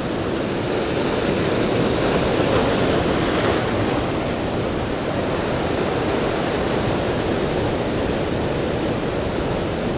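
Ocean surf breaking and washing over shoreline rocks in a steady rush, swelling slightly a few seconds in.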